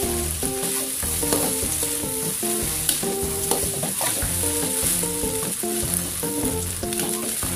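A metal spatula stirring and scraping fried rice around an aluminium wok over a steady sizzle, with short clinks of the spatula on the pan. A simple background melody plays underneath.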